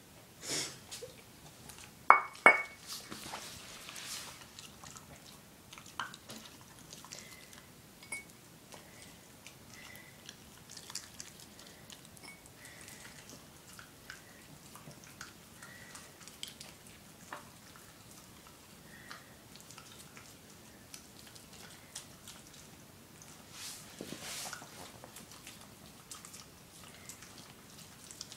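Jack Russell terrier eating a raw squirrel on a hard floor: wet chewing and gnawing broken by many small crunches and clicks of bone and teeth, with a denser run of crunching about 24 seconds in. About two seconds in, two sharp ringing clinks, the loudest sounds, as the ceramic food bowl is set down on the floor.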